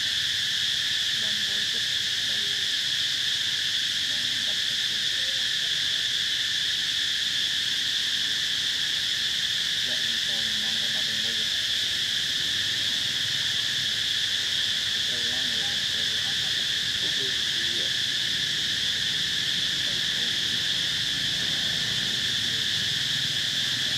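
Steady, unbroken high-pitched insect chorus buzzing at an even level, with faint low sounds now and then beneath it.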